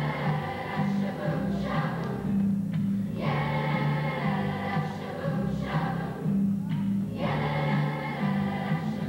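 Youth choir singing, phrase after phrase with short breaks between them.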